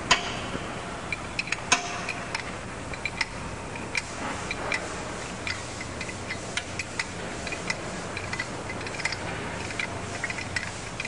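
Irregular light metallic clicks and clinks of tools and parts being handled on a marine diesel's high-pressure fuel oil pump, over a steady low hum.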